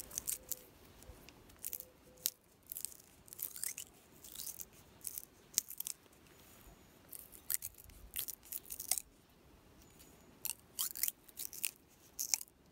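Fresh stinging nettle stem being split open lengthwise with the thumbs, working up the stem: a run of irregular sharp crackles and tearing sounds as the stem splits.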